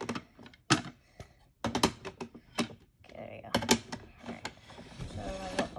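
Hard plastic PSA graded-card slabs clicking and clacking against one another as a stack is picked up and handled, in several quick, irregular clusters of sharp knocks.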